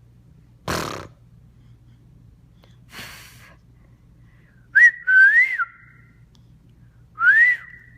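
A baby's short fake cough about a second in and a fainter one near three seconds, then three short whistles, each gliding up in pitch.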